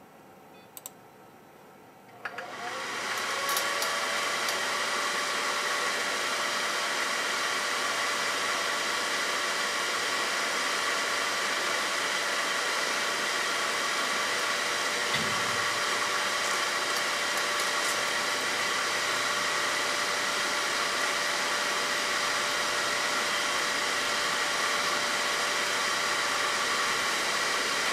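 An electric blower fan on a BGA rework station switches on about two seconds in, spinning up with a brief rising whine, then runs as a steady loud rush of air with a faint constant tone.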